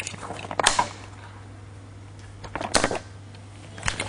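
A few scattered sharp knocks and clicks of a camera being handled, getting busier near the end as it is picked up, over a steady low hum.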